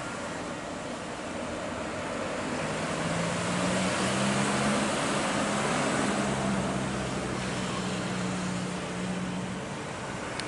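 Jet airliner engines running as the aircraft rolls past on the ground: a steady rushing noise with a low hum that grows louder to a peak about halfway through, then eases off.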